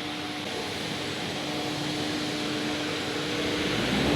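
Factory machinery running steadily: a continuous mechanical noise with a steady hum, getting a little louder near the end.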